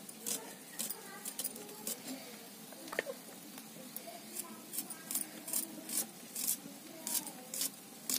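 Red onions being peeled and cut against a curved iron blade: a run of short, crisp crackles and snips of dry onion skin, about two a second at an uneven pace.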